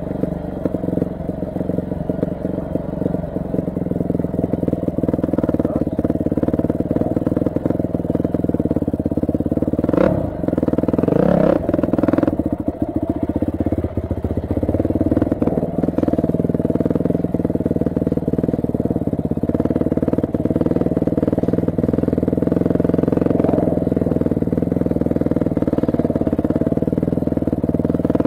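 Yamaha YZ250F dirt bike's single-cylinder four-stroke engine running steadily under way, with a short dip and rise in pitch about ten seconds in.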